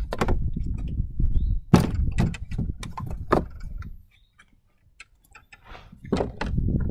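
Irregular wooden knocks and clunks as bowling pins and scrap-wood blocks are set down and moved about on a plywood pinsetter deck, over a low rumble. It goes quiet about four seconds in, then the knocks and rumble start again near the end.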